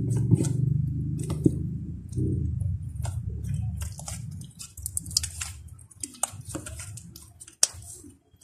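Clay-filled slime being kneaded and mixed by hand: wet squishing with many short sticky pops and clicks, thickest in the second half. A low rumble runs under the first few seconds.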